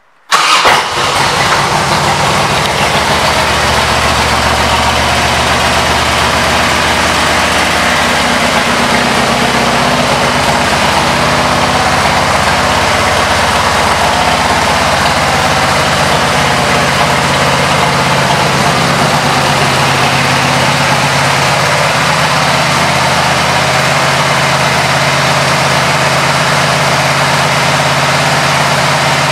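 2000 Harley-Davidson Electra Glide Classic's V-twin engine, fitted with an aftermarket exhaust, starting with a brief burst about a third of a second in and then idling steadily.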